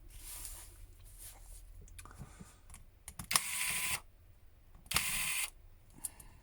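Screws being worked out of a Huawei Y7 phone's inner frame with a small screwdriver: faint scrapes and clicks, with two louder half-second rasps about three and five seconds in.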